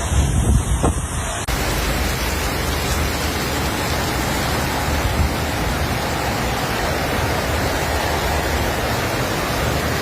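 Heavy rain pouring down in strong wind, a steady rushing hiss; for the first second and a half gusts buffet the microphone, then the sound changes abruptly to an even downpour.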